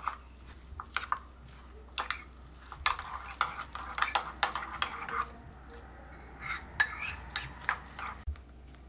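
Metal spoon beating eggs with chopped onion, chilli and coriander in a ceramic mug, clinking and scraping against the sides in quick, irregular strokes, with a brief lull just past the middle.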